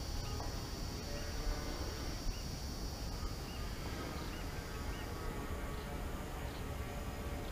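Outdoor ambience: scattered short bird chirps over a steady high buzz that stops about five seconds in, with a low rumble of wind on the microphone.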